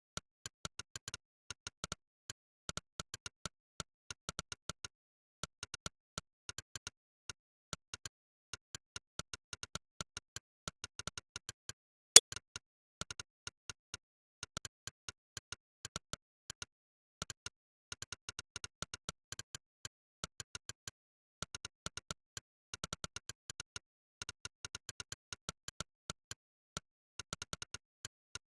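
Monkeytype's synthesized "click" keystroke sound, one short click per key pressed during fast typing, several a second in quick runs with brief pauses. About twelve seconds in comes one much louder click.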